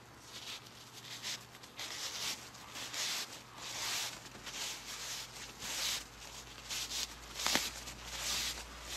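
Paper napkin rustling and crinkling in the hands as it is twisted and crumpled, in a run of short rustles, with a sharper crackle near the end.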